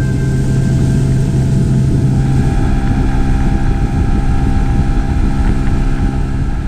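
Outboard motor driving an inflatable boat, a steady drone over a rushing hiss, its note shifting about two and a half seconds in.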